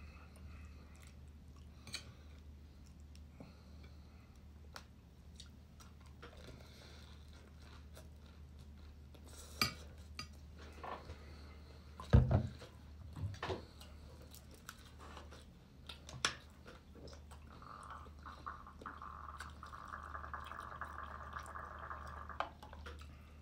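Spoon and plate clinking with chewing, over a steady low hum; a heavy thump about twelve seconds in is the loudest sound. Near the end, a drink is poured from a thermos flask for about five seconds.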